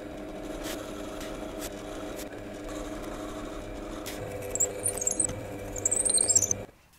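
Drill press running, its bit boring into a length of ash with a steady motor hum and a few clicks. A high wavering squeal rises over it about five seconds in, and the sound cuts off suddenly near the end.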